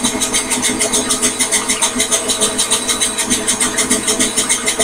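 Microlux variable-speed bandsaw running, with a steady pulse of about five or six beats a second.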